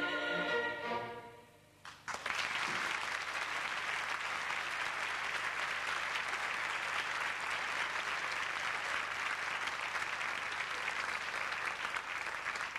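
Orchestra and choir holding the song's final chord, which dies away about a second and a half in. After a brief pause, audience applause breaks out about two seconds in and goes on steadily.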